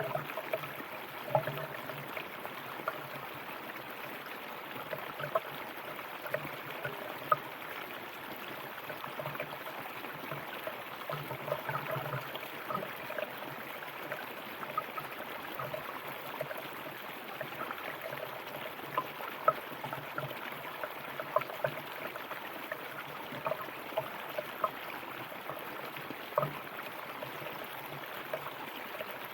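Water of a flowing river or stream running steadily, with frequent small splashes and gurgles over the rush.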